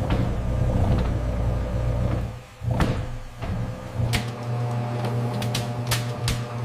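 Machinery running with a steady low hum that cuts out briefly about two and a half seconds in and then resumes, with several sharp clicks and knocks in the second half.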